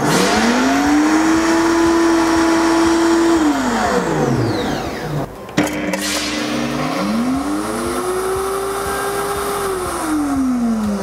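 Two Vosco 1600 W bar blenders run one after the other. First the HS-200, which has no sound enclosure, spins up, runs steadily for about three seconds and winds down. Then, after a click, the HS-212C spins up inside its sound-insulating cover and runs quieter and more muffled, winding down near the end.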